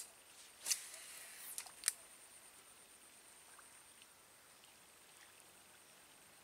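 Fishing rod and reel handled on the bank: a sharp click, a short swish and another sharp click in the first two seconds. Then quiet outdoor background with a faint steady high-pitched whine.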